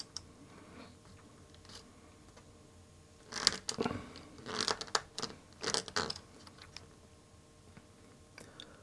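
A small DIP chip's metal pins scraping against a 3D-printed plastic IC pin straightener as the chip is pressed and worked through it to bend its pin rows straight. Three short scraping rasps about a second apart near the middle, with light clicks of chip and plastic handling around them.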